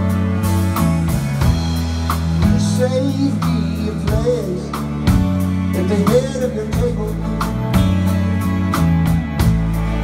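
Live rock band playing an instrumental break: electric guitar lead with wavering, bent notes over strummed acoustic guitar, bass and a steady drum beat.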